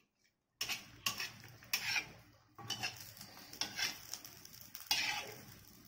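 Metal spatula scraping and tapping on a black iron dosa griddle while folding an egg kalakki, in a series of short scrapes about one a second that begins about half a second in.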